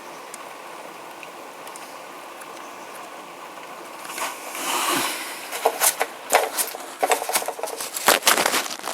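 Steady hiss of heavy rainfall. About halfway through, loud irregular crackling and rustling close to the microphone takes over and becomes the loudest sound.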